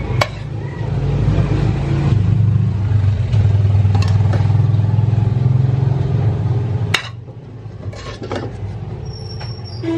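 Loud, steady low motor rumble, like an engine running, that cuts off with a click about seven seconds in; after it, quieter background noise with a few light clicks.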